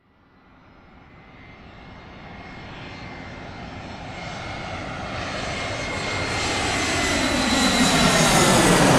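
Airplane approaching and flying over: its engine noise rises out of silence and grows steadily louder, with a steady high whine over the rumble, and is loudest at the very end as it passes closest.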